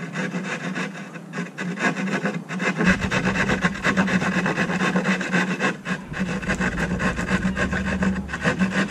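Hand drywall saw cutting through a drywall panel, its blade rasping in quick back-and-forth strokes.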